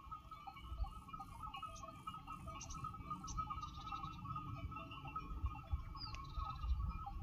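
Outdoor ambience: a low wind rumble on the microphone and a faint steady hum, with several short, high chirps from small birds through the first half and one quick chirp about six seconds in.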